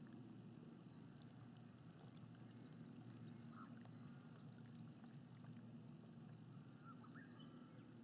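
Calm water lapping gently, a faint, steady low wash, with a few faint high chirps about three and a half and seven seconds in.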